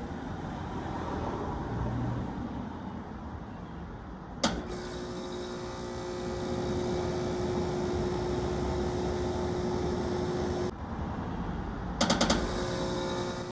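Air conditioner switching on with a click about four seconds in, then running with a steady pitched hum that cuts off suddenly near eleven seconds. Near the end the switch-on click comes again as a rapid stutter of many repeats.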